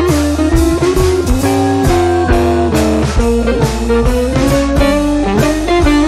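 Background music: a guitar tune over a steady drum beat.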